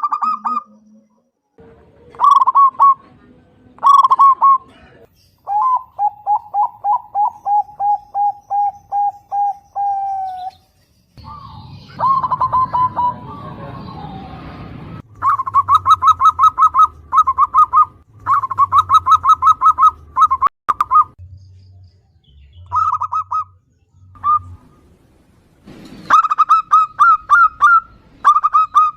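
Zebra dove (perkutut) calling in phrase after phrase of rapid, evenly spaced cooing notes, one long rolling run of them about a third of the way in, with loud, fast runs in the second half.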